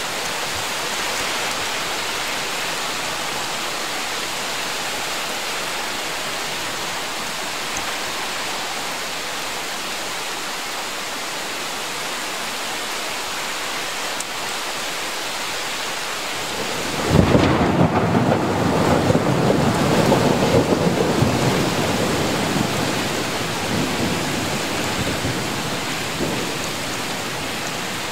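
Steady rain falling. About two-thirds of the way through, a loud clap of thunder breaks suddenly and rumbles on for several seconds, slowly fading.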